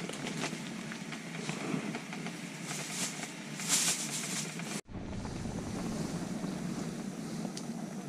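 Gas camp stove burning under a foil pan of simmering sukiyaki broth: a steady rushing hiss. There is a short crinkle of a plastic packet about three and a half seconds in, and the sound drops out for an instant about five seconds in.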